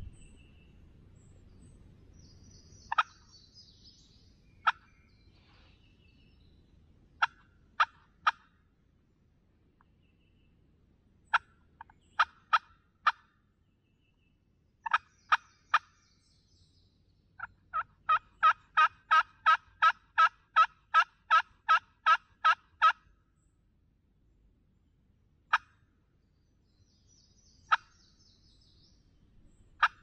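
Hand-held friction turkey call worked to imitate a hen's yelps, calling for a gobbler to answer: scattered single yelps and short runs of two to four sharp notes, then a steady run of about sixteen yelps over some five seconds, and a few more single notes near the end.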